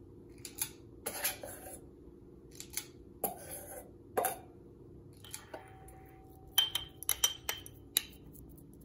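A squeeze-handle cookie scoop scraping and clicking in a stainless steel mixing bowl as it scoops crumbly crust dough. Then, in the last couple of seconds, a metal spoon clinks sharply with ringing against glass mason jars as the dough is pressed in.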